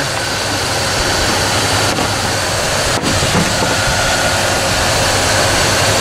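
Dodge Ram 1500 pickup's engine idling with the air conditioning running on maximum, heard close up under the open hood: a steady rush of engine and fan noise with a faint steady whine.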